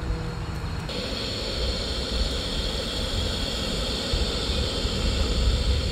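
Crab pieces going into hot cooking oil in a pot: the oil starts to sizzle about a second in and keeps frying with a steady hiss.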